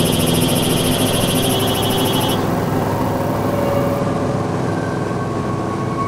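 Citabria light aircraft's engine and propeller drone, steady, with a rapid high-pitched pulsing over it that cuts off about two seconds in.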